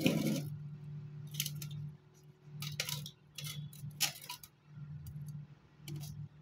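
About half a dozen short scrapes and taps of drawing instruments being handled on paper, over a steady low hum.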